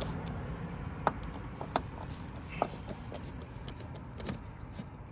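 A few sharp, separate clicks and taps from a screwdriver bit and the plastic tail-light housing as the rear tail-light assembly is unscrewed, over a low steady rumble.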